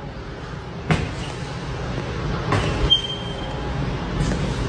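Handheld phone recording moving through an empty house with hard floors: footsteps and handling knocks over a continuous low rumble, with a sharp knock about a second in.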